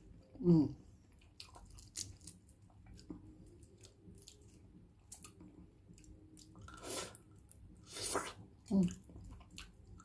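Close-up mouth sounds of eating balut: soft chewing with small wet clicks, and two short falling hums, one near the start and one near the end.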